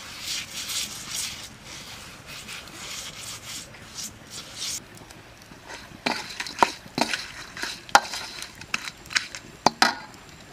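A brush scrubbing back and forth over a wet stone slab in quick, hissing strokes. About halfway through this gives way to a wooden spatula and raw shrimp knocking and clinking in a metal wok: a string of sharp knocks, about a dozen.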